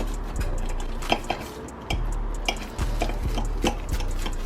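Knife cutting through a cooked quesadilla, with irregular sharp taps and scrapes of the blade against the surface beneath, about two a second.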